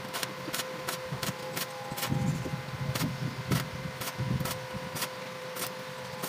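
Stick (arc) welding a steel tricycle bumper: the arc crackles in short, sharp pops about three a second as the electrode runs along the seam, over a steady low hum.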